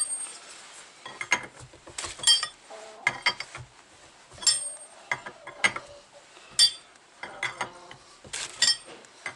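Irregular sharp metallic clinks, about ten of them, roughly one a second, each with a short ring: a hand tool working against a steel nut on a stud held in a bench vise.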